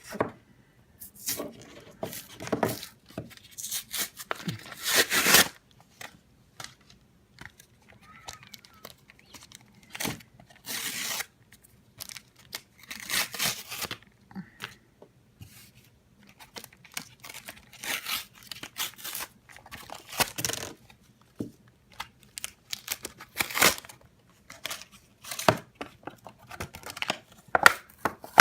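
Pokémon card packaging being torn open and crinkled by hand, in irregular rustling, tearing bursts with short pauses between them.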